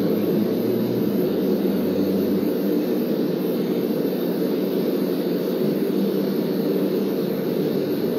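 Tattoo machine running with a steady, even hum as the needle works into the skin.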